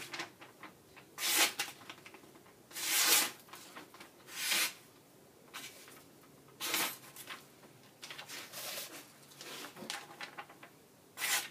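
Thin paper rustling and being push-cut by a freshly sharpened tomahawk edge. There are several short swishes a second or two apart, the loudest about three seconds in.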